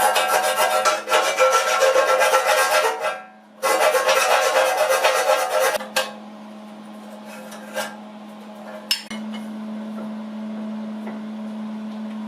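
Dense metallic rattling and scraping in two long bursts, the first about three seconds and the second about two, over a steady hum; after that the hum goes on alone with a couple of sharp clicks.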